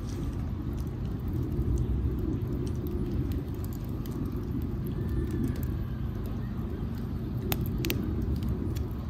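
Campfire logs burning in a fire ring, with a couple of sharp crackles from the wood about seven and a half and eight seconds in, over a steady low rumble.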